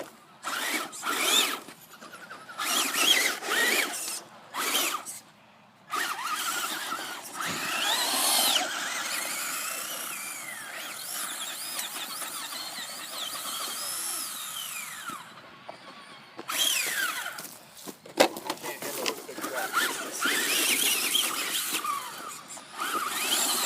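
Electric motor of a radio-controlled car whining in stop-start bursts, its pitch rising and falling as it speeds up and slows down.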